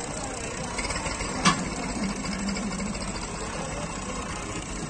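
Massey Ferguson 240's three-cylinder diesel engine running at low revs with a steady rhythmic clatter while pulling a heavy loaded trailer, with one sharp clack about a second and a half in.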